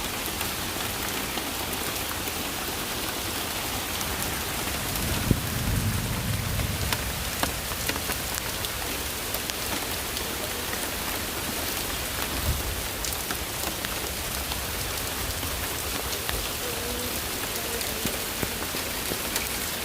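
Heavy rain pouring down: a steady hiss with countless individual drops spattering. A brief, louder low rumble comes about five seconds in.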